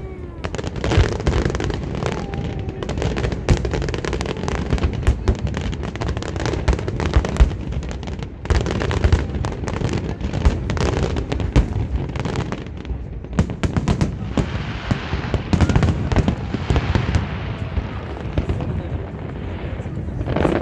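Aerial fireworks shells bursting in quick succession, a dense run of bangs and crackles that thins out in the last few seconds.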